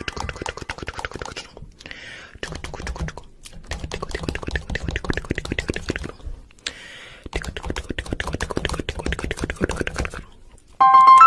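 Rapid, dense clicking and tapping like fast typing, in long runs broken by two short pauses. A bright ringing chime-like tone starts near the end.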